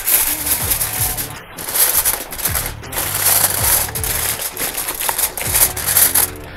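Heavy-duty aluminium foil crinkling and rustling as it is pressed and folded around the edges of a baking tray, over background music.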